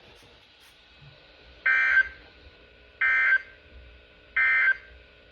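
NOAA Weather Radio sending SAME digital data tones: three short, identical buzzy bursts, each about a third of a second long and spaced just over a second apart. This is the end-of-message code that closes the severe thunderstorm warning.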